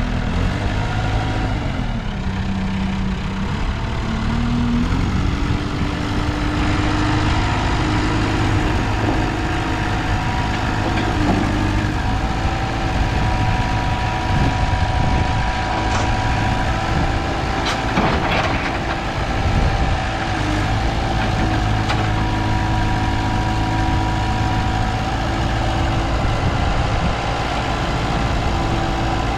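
1995 JCB 3CX backhoe loader's diesel engine running steadily, its note dipping and climbing again in the first few seconds, with a few short knocks later on.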